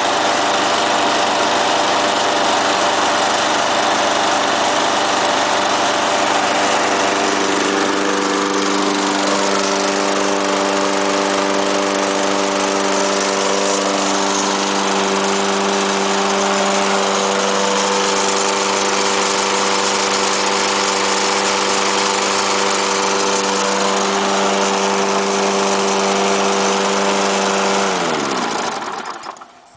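The Briggs & Stratton Quantum engine of a 1990 Rally BP75AR lawn mower running steadily at speed. Near the end it is shut off, and its pitch falls as it spins down to a stop.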